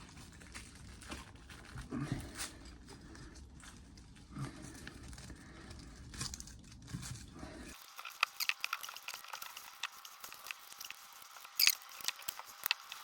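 Scattered scraping and clicking of a screwdriver prying copper windings out of a dishwasher motor. About eight seconds in, the sound changes abruptly to sharper, louder clicks.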